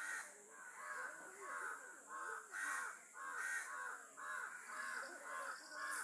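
Birds calling over and over, short harsh calls about two a second, several overlapping.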